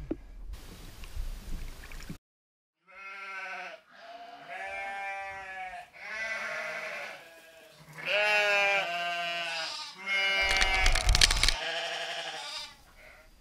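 Animal bleating: about five quavering calls of a second or two each, one after another. A rush of noise fills the first two seconds, and another louder burst of noise comes about ten seconds in.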